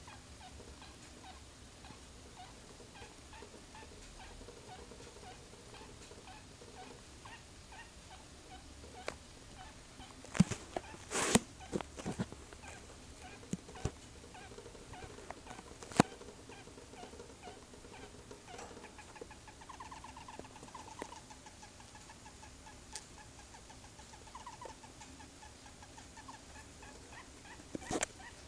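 A pet animal making a faint, rapid series of small repeated noises, with a run of short squeaky pulses about two-thirds of the way in. A few sharp knocks stand out near the middle and again near the end.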